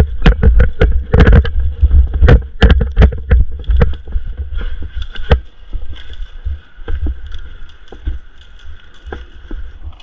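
Heavy low rumble of wind and handling noise on an action camera's microphone, with irregular clicks and knocks from movement and gear. Loudest in the first four seconds, then easing off.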